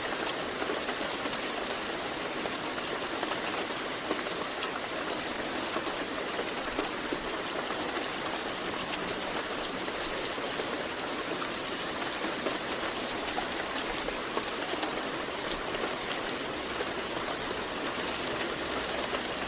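Steady rain falling: a dense, even hiss studded with many sharp ticks of individual raindrops.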